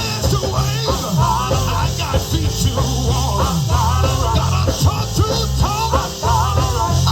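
Up-tempo Pentecostal gospel band music: organ playing fast bending runs over a driving drum beat and bass line.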